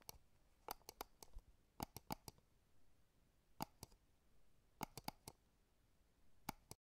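Faint, irregular clicking, some clicks coming in quick clusters: a 3 mm crochet hook and the hands working single crochet stitches into a chain of cotton yarn.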